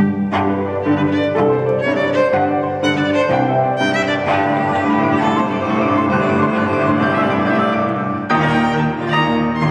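Piano trio of violin, cello and piano playing live chamber music, an arrangement of an Argentinian folk dance, with the bowed strings over piano. A new group of notes starts about eight seconds in.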